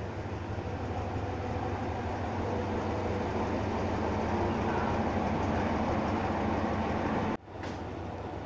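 A diesel locomotive's engine drones steadily as it hauls a passenger train in along the platform, growing louder as it passes close. Near the end the sound cuts off abruptly and resumes a little quieter.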